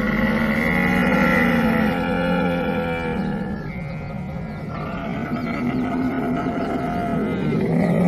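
Camel calling: low, drawn-out groaning vocalizations with many overtones, starting suddenly, easing about three seconds in and swelling again near the end.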